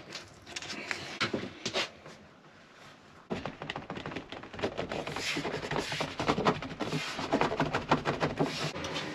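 Hands pressing and rubbing along masking tape on a wooden worktop edge. The scratchy rubbing and small clicks come sparsely at first, then from about three seconds in become a dense, louder run.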